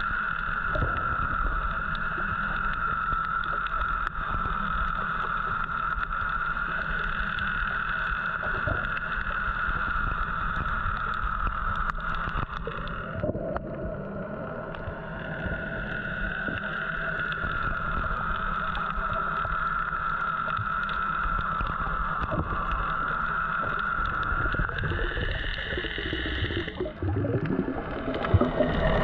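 Boat engine heard underwater as a steady whine over a low rumble. The whine breaks and drops about halfway through, then climbs in pitch a few seconds before the end.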